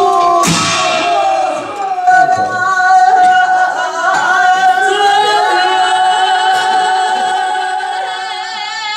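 Tibetan folk singing: a high voice holds long, wavering notes over accompanying music, with a crash about half a second in.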